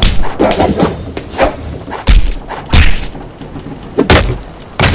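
A series of heavy punch sound effects, about six thuds of blows landing at uneven intervals, the hardest ones two to four seconds in.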